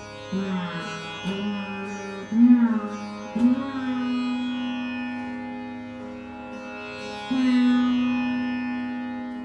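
Rudra veena played in slow Dhrupad style: a few plucked notes that slide up in pitch before settling. The last two ring on for several seconds each over the steady drone of the other strings.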